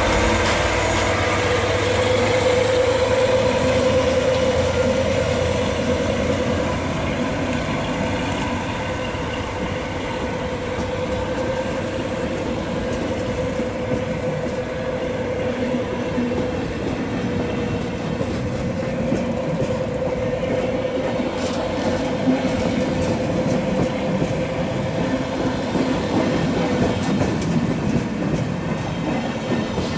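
Regional coach set being shunted out of the station by a class 362 diesel shunting locomotive: wheels clicking over rail joints and points, with a steady whine over the rumble.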